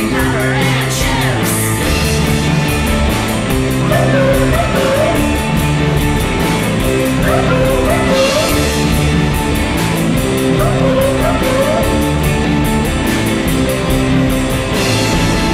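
Rock music with electric guitar, drums and a singing voice, at a steady beat.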